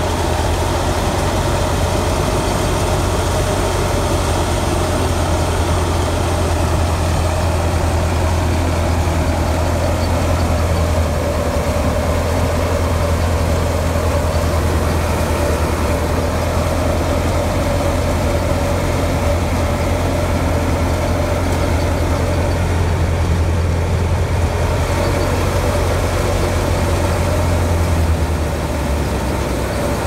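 Tractor-driven wheat thresher running steadily while threshing: a loud, continuous low engine drone with the thresher's steady whirring hum above it. The low drone eases slightly near the end.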